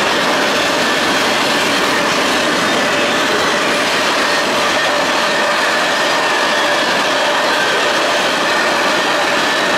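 CSX freight train's cars, boxcars then tank cars, rolling past at close range: a loud, steady rumble and rattle of steel wheels on rail, with a faint steady ringing tone over it.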